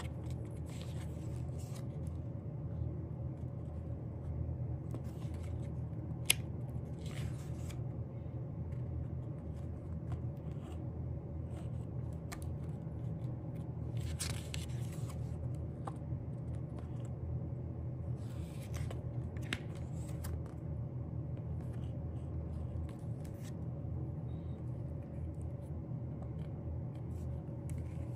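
Album packaging and paper pages handled by hand: short, scattered bouts of rustling and scraping, with one sharp click about six seconds in, over a steady low hum.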